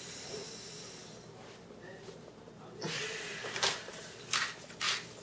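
Kirkland sea salt grinder being twisted by hand, grinding salt. A faint hiss at first, then from about three seconds in, short grinding strokes about twice a second.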